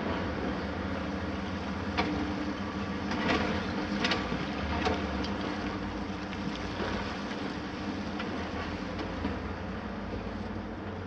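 Heavy diesel excavators running steadily with a constant low engine hum. A few sharp knocks and clacks of concrete rubble and steel come between about two and five seconds in as the demolition grab handles debris.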